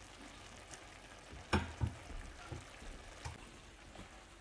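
A slotted spoon stirring rice, sausage and vegetables in a nonstick skillet, with two sharp knocks of the utensil against the pan about one and a half seconds in and a couple of lighter clicks later.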